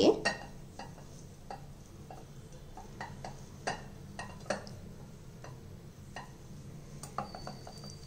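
Fresh coriander with its roots being pushed down into a glass jar of water: scattered light taps and knocks against the glass and rustling of stems and leaves, over a low steady hum.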